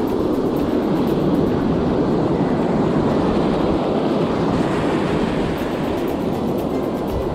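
Steady wind noise on the microphone mixed with the wash of breaking surf.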